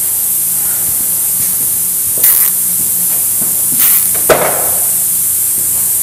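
Steady background hum and hiss, with a few light clicks and one sharp knock a little past the middle as small parts are handled on a workbench.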